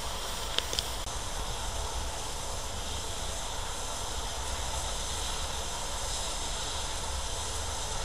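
Steady hiss of steam from the standing steam locomotive 34046 Braunton, a Bulleid West Country class Pacific, with two short clicks just under a second in.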